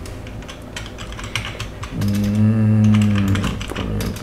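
Typing on a computer keyboard, a quick run of key clicks throughout. About halfway through, a man's long drawn-out hum ("hmmm") lasting about a second and a half is heard over the typing and is the loudest sound.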